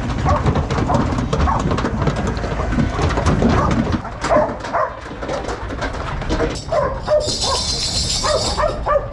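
Working sheepdog barking repeatedly at a pen of sheep, with many short clattering knocks from the sheep's hooves on the slatted wooden floor of the woolshed. A steady hiss comes in near the end.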